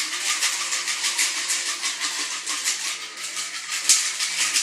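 Metal cocktail shaker being shaken hard to mix a drink, its contents rattling against the sides in a steady rhythm of a few shakes a second, with one louder hit about four seconds in.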